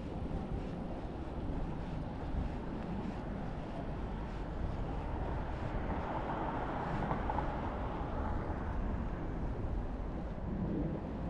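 Steady outdoor city ambience: a low, even rumble of distant traffic, swelling slightly around the middle.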